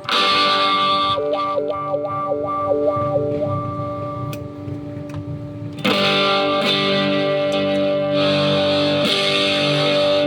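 Electric guitar played through effects with some distortion for a tone check. A chord is struck and left ringing with a few short picked notes over it, then a second chord is struck about six seconds in and sustained.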